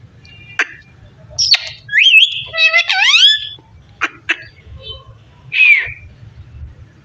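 Pet parrot whistling and calling: a few sharp clicks, a loud run of rising and falling whistles in the middle, and a falling squawk near the end.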